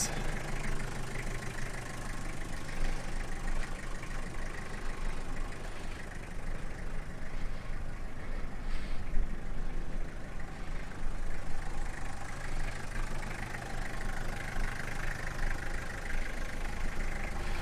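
1992 Toyota Hiace's 2.4-litre four-cylinder diesel idling steadily.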